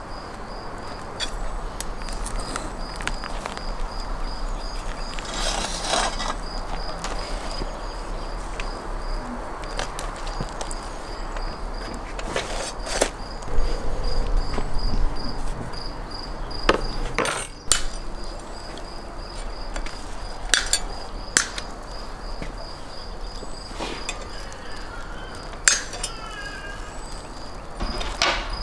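An insect chirping steadily outdoors, a thin high note repeating about twice a second, with scattered knocks and clanks as a whole roasted lamb on its long metal spit is carried over and set down on a wooden board. The loudest knocks come about halfway through.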